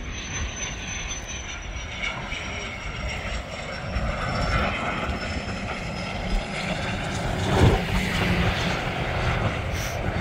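Fixed-wing aircraft engine noise, a steady rush with a faint high whine slowly falling in pitch over the first half, and a brief thump about three-quarters of the way through.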